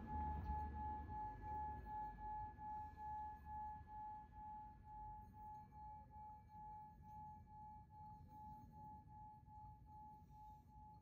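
Meditation soundtrack: a single sustained ringing tone, like a singing bowl, pulsing about twice a second, with a faint higher overtone above it and a low hum beneath.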